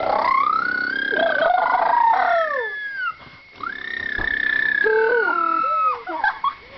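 A person making an airplane noise with the mouth: two long high-pitched glides, each rising and then slowly falling over about three seconds, with a short break between them and a few short squeaky sounds near the end.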